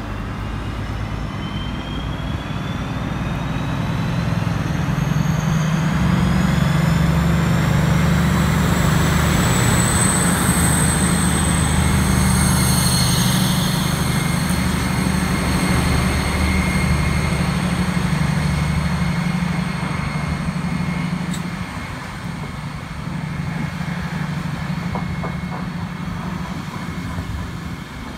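Two DB class 218 diesel-hydraulic locomotives running double-headed past the listener: a deep engine drone with a high whine rising in pitch, loudest about halfway through. As the locomotives draw away, the Intercity coaches rumble past on the rails.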